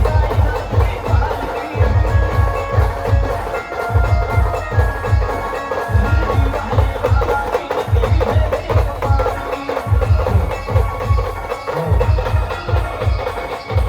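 Brass band playing: horns carry a sustained melody over heavy bass drums beaten in fast runs that break off briefly about every two seconds.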